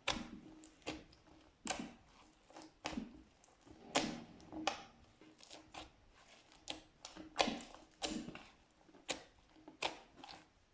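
Slime being squeezed and worked by hand, giving irregular wet clicks and pops about every half second to a second.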